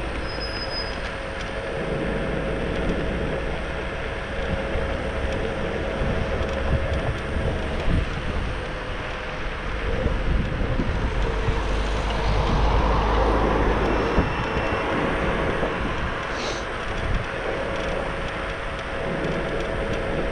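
Steady rumble of riding a Xiaomi Mi Pro 2 electric scooter along a street: wind buffeting the microphone and tyre-on-road noise, with a faint steady whine underneath. Passing traffic swells louder around twelve to fourteen seconds in.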